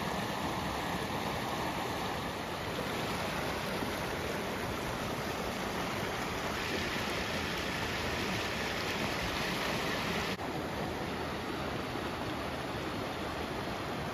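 Steady rush of river water pouring over a shallow rock ledge and riffle. The sound dips briefly about ten seconds in, then the rushing carries on a little softer.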